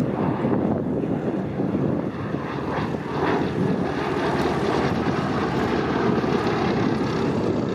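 Propeller-driven aircraft's piston engine running steadily, with some wind noise on the microphone.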